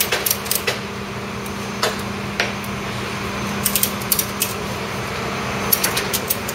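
Ratchet strap being cranked tight by hand, its ratchet clicking in several short runs with pauses between, over a steady low hum.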